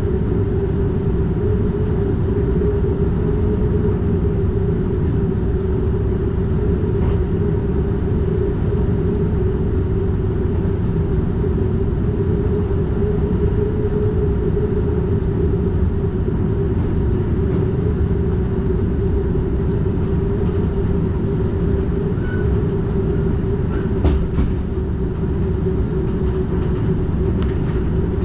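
NS DDZ double-deck Intercity train running steadily at line speed, heard from inside the driver's cab: a constant deep rumble of wheels on rail with a faint steady tone over it. A few short clicks come late on.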